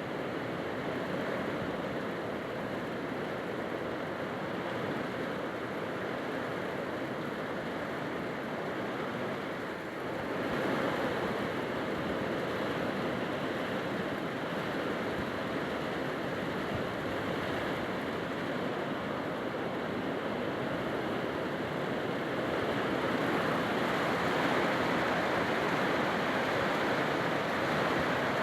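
A storm's steady rushing noise, swelling a little about ten seconds in and again in the last few seconds.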